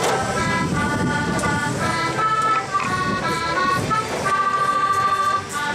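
Music: a melody of held, reedy notes changing pitch every half second or so, over a steady busy background noise.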